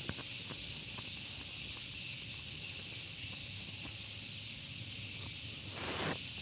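Steady high-pitched outdoor hiss with a few faint clicks; no machine running.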